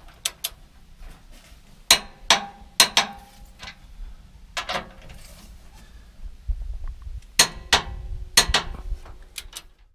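Torque wrench and socket on the gooseneck hitch frame bolts: sharp metallic clicks and clanks with a short ring, a dozen or so spaced irregularly and often in pairs, as the fasteners are brought to final torque.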